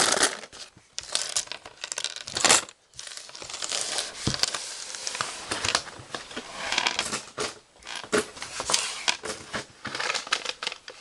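Paper and plastic packaging rustling and crinkling in irregular bursts as items are handled and pulled out of a mailed package, with a few sharper clicks.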